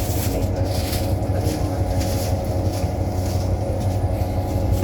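Inside a 2018 New Flyer XDE60 diesel-electric hybrid articulated bus under way: a steady low drivetrain drone with several steady tones above it, and road hiss that swells and fades. The drivetrain sound is one that is strange compared with other XDE60s.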